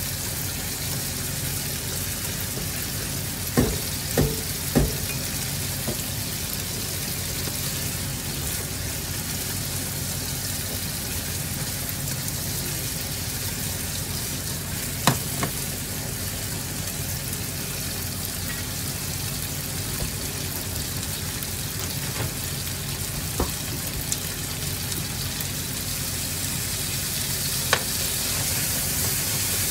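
Food sizzling steadily as it fries in a pan, with a few sharp knocks of a utensil against the pan: three close together a few seconds in, then single ones now and then.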